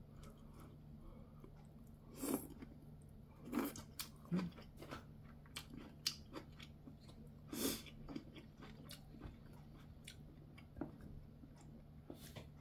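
A person chewing braised kimchi close to the microphone, in scattered short bursts with small clicks between them.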